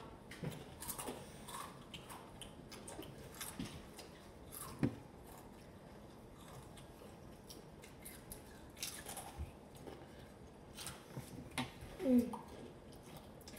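Crunching and chewing of rolled corn tortilla chips (Takis), a scatter of short, faint crackles.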